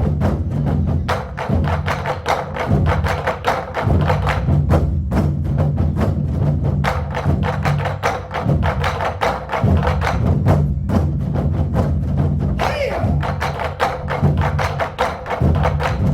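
Group performance on Korean barrel drums (buk), many drums struck together in a fast, driving rhythm, with sharp stick clicks among the drum hits, over steady backing music.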